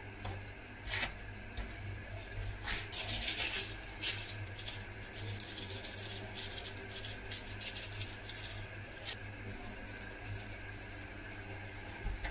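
Dried seasoning shaken from a plastic packet onto raw chicken pieces in a baking tray: a run of short, dry rustles and crinkles, loudest about three seconds in. A steady low hum runs underneath.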